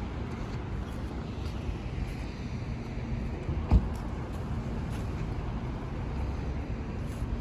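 Steady low rumble of outdoor background noise, with one sharp knock a little past the middle.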